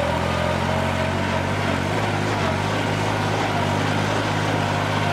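New Holland 3630 Special Edition tractor's diesel engine running steadily under load while pulling a tined cultivator through hard, dry soil. It is working in second gear, which the operator finds too high a gear for this soil.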